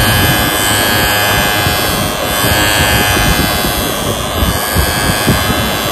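Battery body groomer (electric body trimmer) running with a steady hum as its blade is run over forearm hair, with rubbing noise from the trimmer working close to the microphone.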